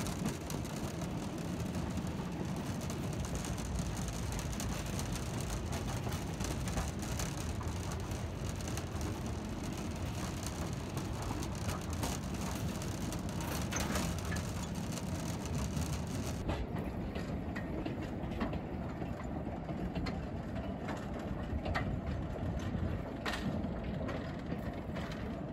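Narrow-gauge slate wagons of the engineless gravity train freewheeling downhill: a steady rumble of wheels on rail with a few sharp clicks, and no engine.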